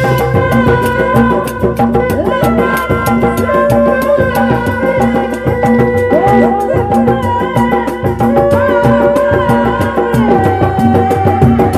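Sundanese reak ensemble music: dogdog drums beaten in a fast, dense, driving rhythm, with a held, wavering melody line above them.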